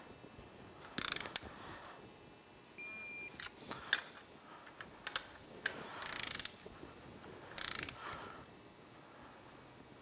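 Ratchet of a digital torque wrench clicking in short bursts as cylinder head bolts are run down, with a brief electronic beep about three seconds in, the wrench's signal that the set torque is reached.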